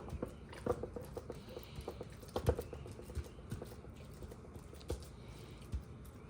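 Hands pressing raw ground meat down into the cups of a metal muffin tin, giving irregular light taps and clicks, with a couple of louder knocks about two and a half and five seconds in.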